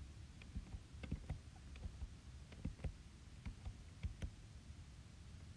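Faint, irregular light taps and clicks, about a dozen, over a low steady hum: fingertips tapping a tablet's touchscreen.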